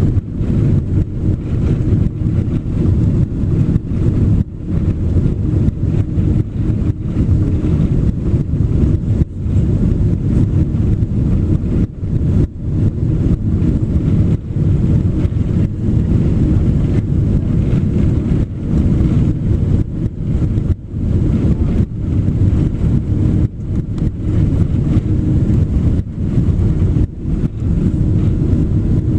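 Cabin noise inside a Boeing 767-400 airliner: the engines and rushing airflow make a loud, steady low rumble, with frequent brief dips in level.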